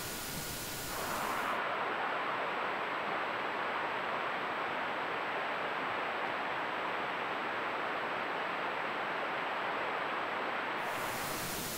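Steady, even hiss of a trail camera's outdoor recording, starting about a second in and stopping near the end, with no distinct events.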